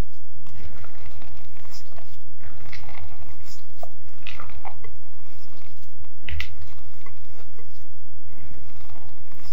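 A spatula folding grated carrot into thick, oily cake batter in a glass bowl: irregular wet squelches and stirring sounds, over a steady low hum.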